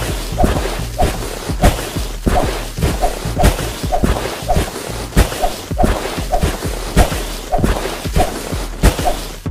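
Upbeat backing music with a steady beat of about two strokes a second, mixed with crashing and crumbling sound effects as a bowling ball smashes through heaps of kinetic sand and bowling pins.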